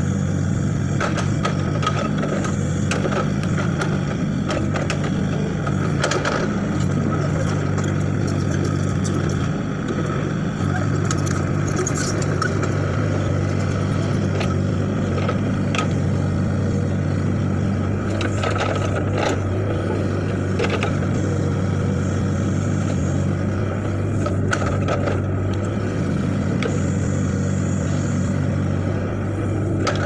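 Hitachi mini excavator's diesel engine running steadily under load while it digs, with scattered knocks and scrapes of the bucket in soil and stones.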